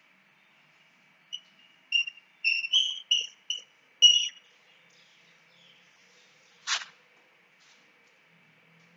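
Chalk squeaking on a blackboard while a word is written: a quick run of short, high squeaks, then about three seconds later one brief chalk scratch.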